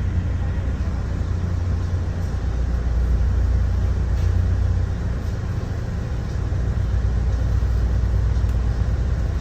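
Steady low rumble of a transit vehicle running, even throughout, with no buzzer sounding.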